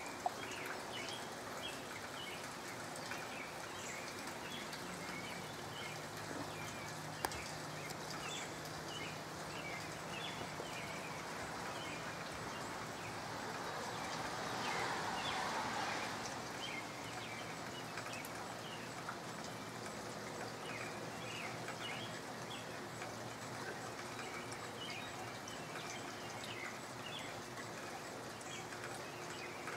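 Soft, steady rain falling on trees, with small birds chirping on and off throughout. About halfway through, a rush of noise swells and fades.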